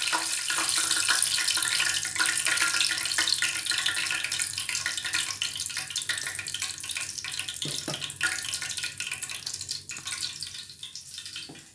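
Hot cooking oil sizzling and crackling in a frying pan after frying chicken, the crackle slowly dying down.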